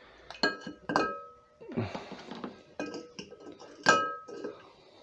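Coral frags and rock knocking against a glass dish of water, giving a few ringing glass clinks, the loudest near the end, with softer handling and rustling between them.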